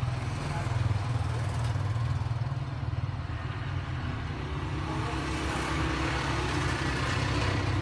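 Hot air rework gun running steadily: its blower gives a low, even hum with an airy hiss as hot air is played onto a phone's logic board to melt the solder under a part held in tweezers.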